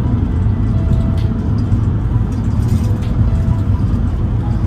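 Steady low road rumble of a moving car.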